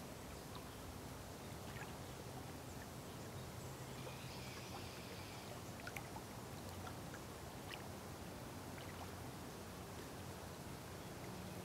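Faint lake-shore ambience: small waves lapping with scattered little ticks and splashes over a low steady hum.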